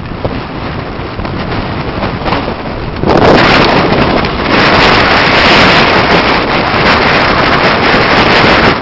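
Wind buffeting the microphone on an open boat, a steady rushing noise that gets much louder in a gust about three seconds in.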